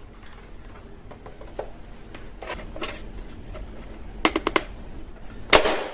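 A plastic toy gun being handled, giving scattered light clicks, including four quick clicks about four seconds in and a sharper click near the end.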